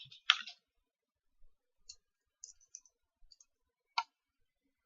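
Scattered small clicks and light knocks from objects being handled, with a loud click just after the start and a sharp one about four seconds in.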